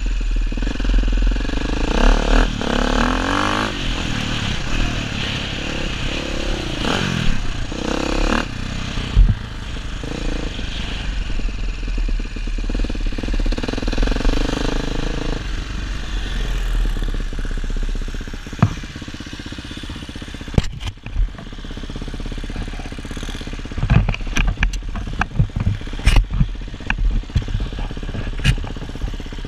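Dirt bike engine running under riding load, its pitch rising and falling as the throttle opens and closes, heard through wind noise on the helmet-mounted microphone. In the last third, a run of sharp knocks and clatter.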